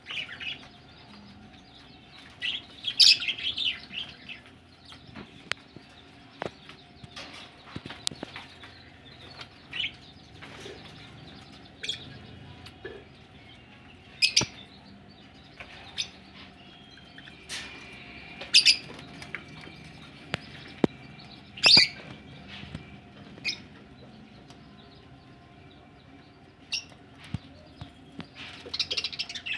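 Budgerigars chirping in short, scattered calls, with sharp clicks and a few louder bursts of chatter, over a faint steady hum.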